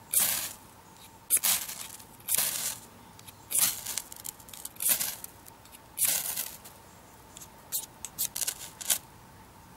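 A fire steel scraped hard with its metal striker to throw sparks onto a pile of dry seed-head tinder. There are six long rasping strokes about a second apart, then a quick run of short, lighter scrapes near the end.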